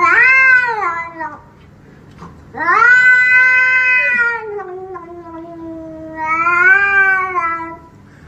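Cat giving three long, drawn-out meows, each rising and then falling in pitch.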